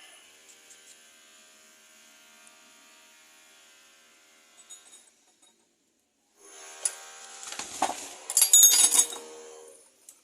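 Metal parts of a washing-machine motor clinking and rattling as they are handled and fitted together: a faint metallic ringing at first, then a louder run of clattering and clinks from about six and a half seconds in.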